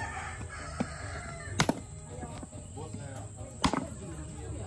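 Parang chopping a large fish into steaks on a wooden log block: a light knock a little under a second in, then two heavy chops about two seconds apart.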